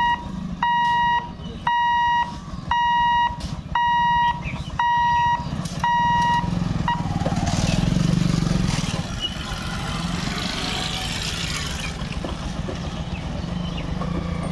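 Level-crossing barrier warning buzzer beeping about once a second while the boom lifts, stopping about six seconds in. Then motorcycles and e-rickshaws run across the tracks.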